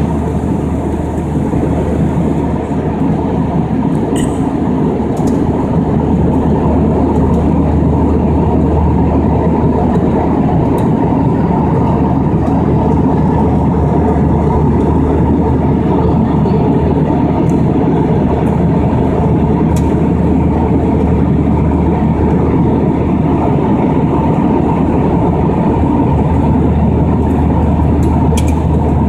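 Steady, dense engine and airflow noise inside an airliner's cabin in flight, heaviest in the low range, with a few faint clicks now and then.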